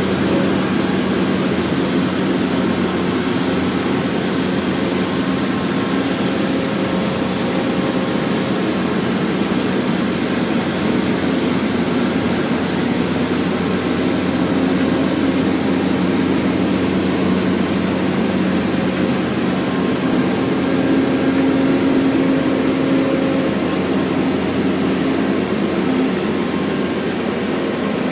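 Diesel power pack of a Cometto self-propelled modular transporter running steadily as the multi-axle trailer rolls slowly past. It makes a continuous low engine drone that swells slightly about twenty seconds in.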